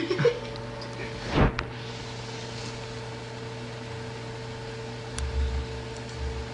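Steady low electrical hum in a room, with a brief rustling noise about a second and a half in and a low rumble near the end.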